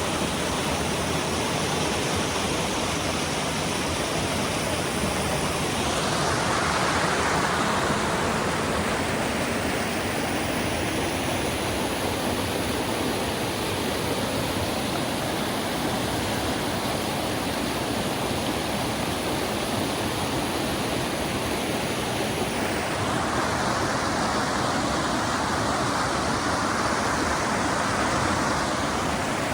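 River rapids rushing steadily, a loud, even wash of white water. The tone of the rush shifts about six seconds in and again a little past twenty seconds in.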